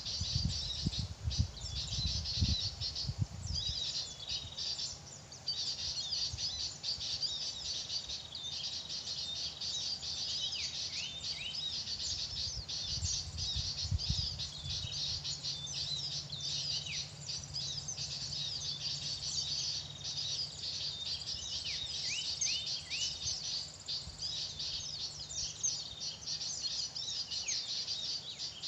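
Many small wild birds chirping and calling together in a dense, high-pitched chorus, with now and then a whistle sliding down in pitch. A low rumble runs under the first few seconds.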